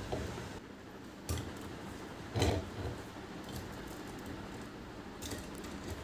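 A planter and crystal-bead candle holders being handled and set down on a tray: a few short knocks and clinks, the loudest about halfway through, over a steady low hum.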